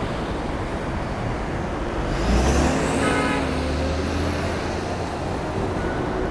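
Busy city intersection traffic with a heavy vehicle's engine pulling away nearby about two seconds in: a deep rumble with a rising pitch that fades after a couple of seconds, over steady road noise.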